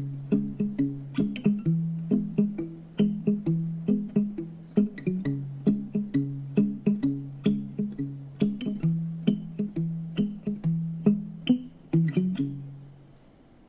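Guitar fingerpicking the song's closing figure, quick plucked notes in a repeating pattern with no singing. A last few notes near the end ring out and fade away.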